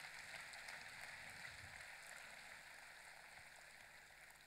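Near silence: a faint, even hiss that slowly fades away.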